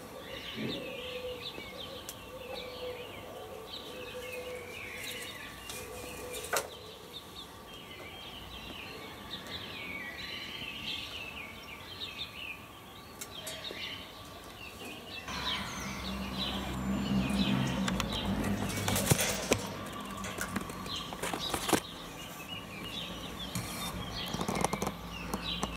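A dove flapping its wings in a wire cage, with small birds chirping in the background. About halfway through a louder low rumble comes in, and there are a few sharp clicks.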